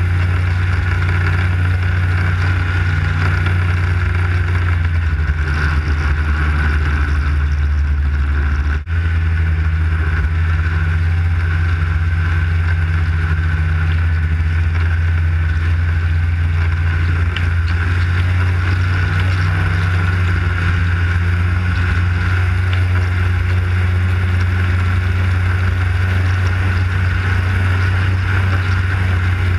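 Arctic Cat snowmobile engine running at a steady cruising speed under the rider, a low drone with a steady higher whine above it. The sound cuts out briefly about nine seconds in.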